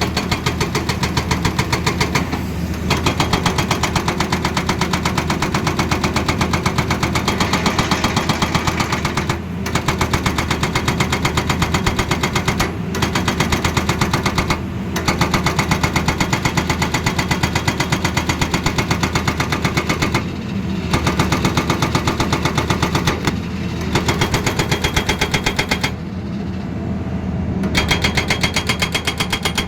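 Excavator-mounted hydraulic breaker hammering with rapid, evenly spaced blows in long runs, stopping briefly several times, over the steady running of the excavator's diesel engine.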